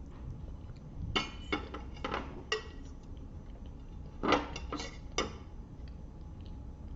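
Tableware clinking: a few sharp clinks with brief ringing, in two quick clusters about a second in and again about four seconds in.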